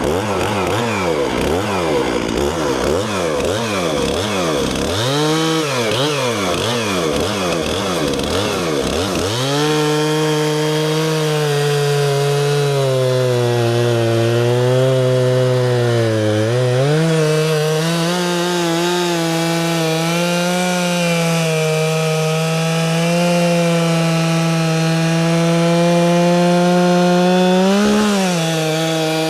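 Large Stihl chainsaw bucking a felled poplar log into lengths. For the first several seconds the engine speed swings up and down over and over. About nine seconds in it settles into a steady high-speed run, sagging as the chain takes the load of the cut, with a short rise near the end.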